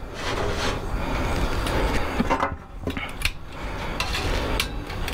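Metal handling at an open vertical cabinet smoker: a few sharp clinks and knocks over a steady rushing noise.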